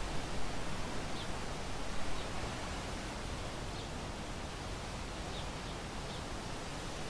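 Steady outdoor hiss of open bush ambience, with a few faint, short, high bird chirps scattered through it. There are some slightly louder rustling gusts in the first couple of seconds.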